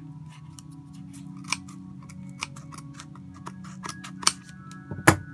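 Scissors snipping through a paper gift wrapping: a run of small sharp cuts and clicks, the loudest one near the end.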